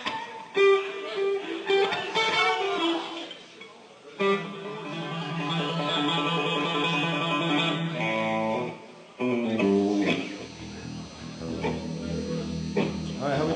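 Electric guitar playing loose held notes and chords through an amplifier, with short breaks about four and nine seconds in, as a guitarist noodles on stage before the next song starts.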